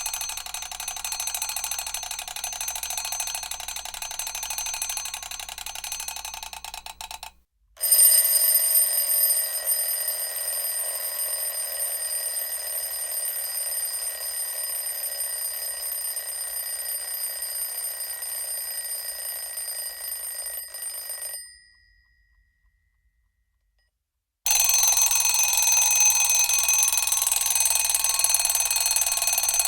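Mechanical alarm clock bell ringing continuously, its hammer rattling against the bell, in three separate rings: the first stops about seven seconds in, the second carries clear steady bell tones and dies away after about fourteen seconds, and after a few seconds of silence a third ring starts near the end.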